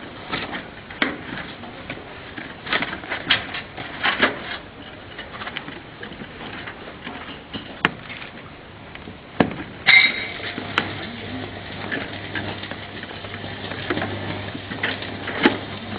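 Irregular clicks, knocks and light rattles of handling baling wire at a hydraulic waste-paper baler, with a low steady machine hum that sets in about ten seconds in.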